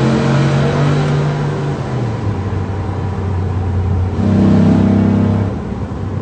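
Ford pickup truck's engine heard from inside the cab while driving, pulling under acceleration. Its note steps down about two seconds in and swells louder again about four seconds in.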